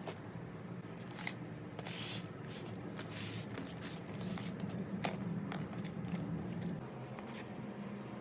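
Small metallic clicks and clinks of tools and small parts being handled, with one sharp click about five seconds in and a couple of brief hisses, over a steady low hum.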